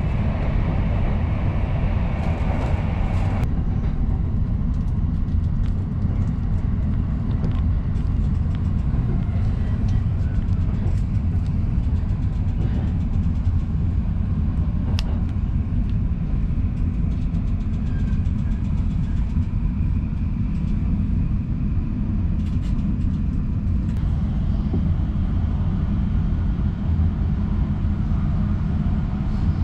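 Steady low rumble inside the cabin of a JR East double-decker Green Car train carriage, with a few faint clicks.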